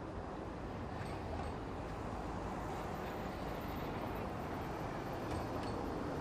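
Steady low rumbling noise with no distinct events, growing slowly louder.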